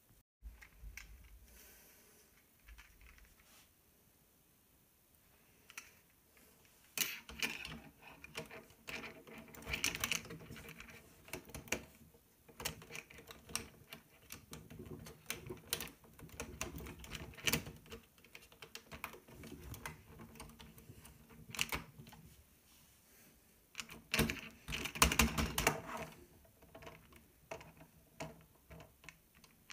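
Plastic Lego Technic parts clicking and rattling as they are handled, snapped together and moved, including a jointed arm with a saw-blade attachment. The quick, irregular clicks grow busy from about seven seconds in, with denser flurries around ten seconds and near twenty-five seconds.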